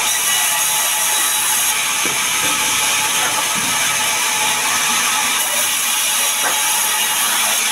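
Sawmill band saw running steadily with a loud high hiss as a sengon log is fed along its table into the blade.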